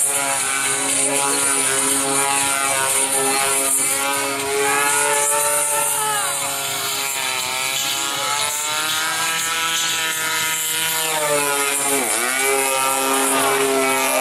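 Radio-controlled aerobatic model airplane's engine and propeller running in flight, its pitch dipping and climbing back up several times as it passes and changes throttle.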